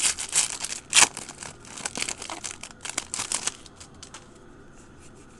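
Foil wrapper of a Donruss Elite baseball card pack crinkling and crackling as it is handled and pulled away from the cards, with one louder crackle about a second in. The crinkling dies away about three and a half seconds in, leaving a few faint clicks.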